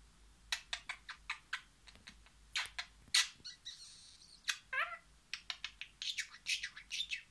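Budgerigar chatter: a quick, uneven run of short clicks and chirps with a few longer warbled notes.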